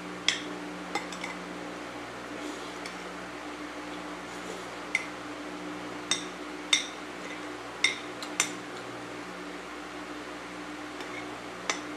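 A spoon clinking against a plate during eating: about nine sharp clinks at uneven intervals, over a steady low hum.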